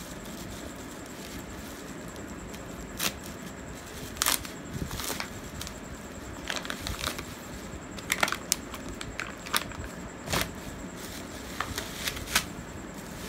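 Bubble wrap and plastic packaging crinkling and crackling as hands handle and unwrap bubble-wrapped pouches. The crackles come irregularly and are sharp, some louder than others.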